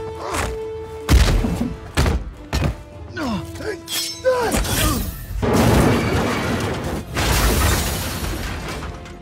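Film fight sound effects over a music score: a quick run of blows and hits mixed with whooshes, then a long crash and shattering as a vehicle tumbles and breaks apart.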